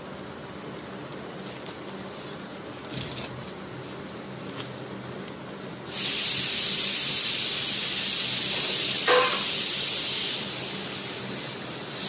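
A loud, steady hiss starts suddenly about six seconds in, holds for about four seconds with a brief squeak in the middle, then fades away.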